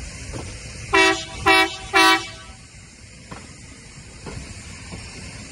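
Train air horn sounding three short blasts about half a second apart, over the low rumble of the Nebraska Zephyr passenger train rolling past on the rails.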